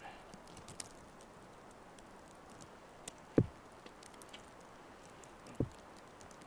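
Two short dull thumps about two seconds apart, the first the louder, with a few faint ticks and clicks between them over a quiet background.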